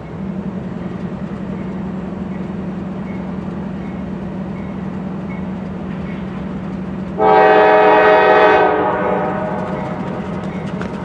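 Diesel locomotives running with a steady low drone; about seven seconds in, a locomotive air horn sounds one blast of several tones at once, lasting about a second and a half before it fades.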